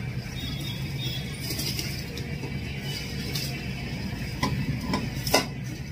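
Whole masoor lentils poured from a metal bowl into a pressure cooker of boiling water, with a few metal clinks of the bowl against the cooker near the end, the last one the loudest, over a steady low rumble.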